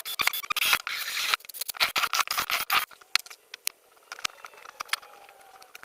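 Scissors cutting: a quick run of snips and crisp cutting strokes for about three seconds, then scattered lighter clicks.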